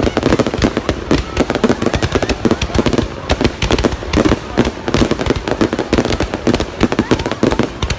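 Fireworks going off in a dense, continuous barrage of bangs and crackles, many a second.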